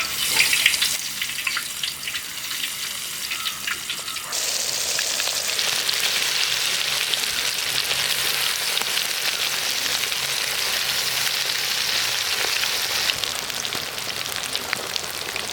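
Masala-coated chicken pieces deep-frying in hot coconut oil. It crackles at first, then turns into a loud, dense sizzle about four seconds in, which eases a little near the end.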